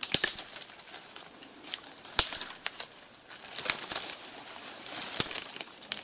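Twigs and branches snapping and leaves rustling in scattered short cracks as a man climbs up through a tree's branches. A steady high hiss runs underneath.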